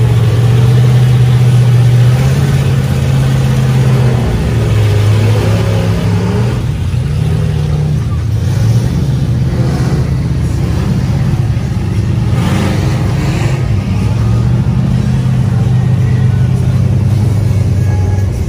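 Engines of off-road vehicles running and revving, their low drone shifting in pitch every few seconds.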